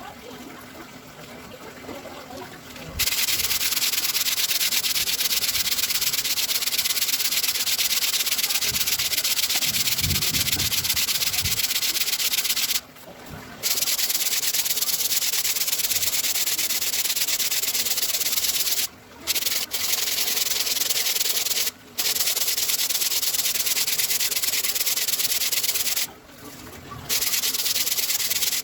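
Steady, coarse sanding of sonokeling rosewood with 60-grit sandpaper, an even gritty hiss. It starts about three seconds in and breaks off briefly a few times.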